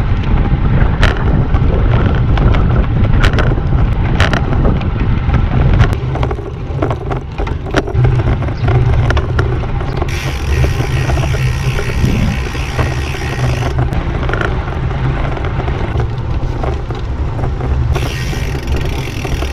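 Wind rushing over the microphone of a bike-mounted action camera while riding a road bike, with tyre and road noise and scattered clicks and knocks from bumps. A higher hiss comes in for a few seconds about halfway and again near the end.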